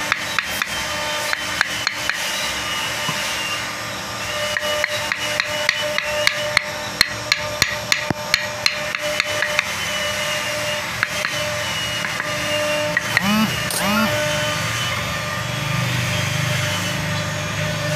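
Wooden mallet tapping a carving chisel into a wooden furniture leg, in quick light strokes several a second; the taps thin out after about ten seconds.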